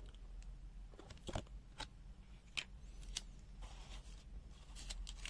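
Faint handling noise: scattered light clicks and rustles of paper cards and small items taken out of a multimeter's box, over a steady low hum.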